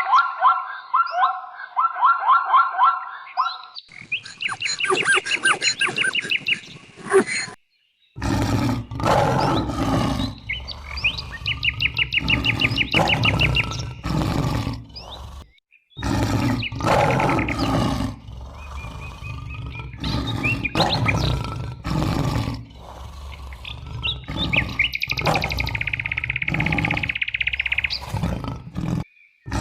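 Animal calls in several short clips cut together: fast runs of repeated bird chirps, then noisier stretches with bird notes over them.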